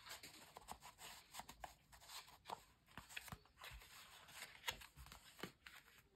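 Faint rustling and light ticks of paper and card as a small handmade notebook is handled, its tag moved in its pocket and its pages flipped.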